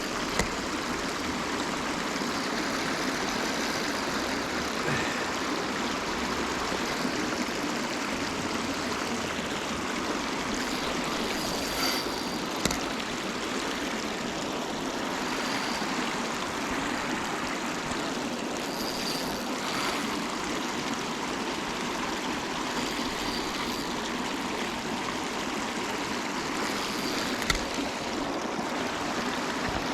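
River water rushing steadily over a riffle, an even unbroken rush, with a couple of brief sharp clicks partway through and near the end.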